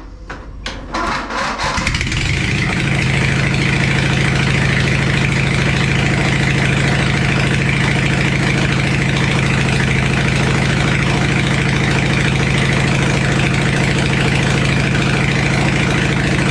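Riding lawn mower engine started with its newly wired push-button electric start: a few short clicks of cranking, the engine catching about two seconds in, then running steadily.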